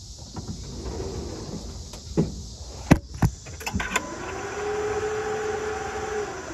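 A few sharp clicks and knocks, then a small electric motor whine that rises, holds steady for about two seconds and falls away. It is the key-on whine heard just before the Ford F-59's 7.3L gas engine is cranked.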